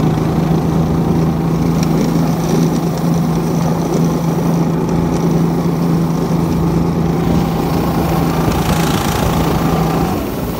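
The 6.5 hp single-cylinder four-stroke engine of a tracked motor-dog snow pusher running steadily under throttle as the machine pushes through deep snow. The note holds constant, then eases off slightly near the end.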